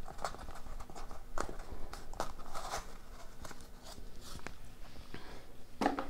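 Hands working a foam insert and card packaging out of a box: scattered light taps, scrapes and rustles.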